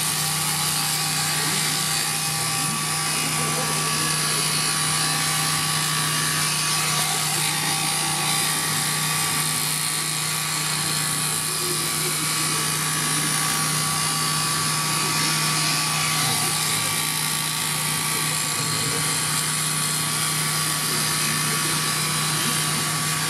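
Electric shearing handpiece running steadily as it cuts through a vicuña's fleece: a constant hum with a thin, steady high whine above it.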